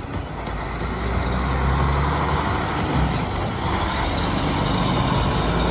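Diesel semi-truck pulling a tanker trailer, its engine running with a steady low rumble and road noise as it drives past, growing a little louder after the first second or so.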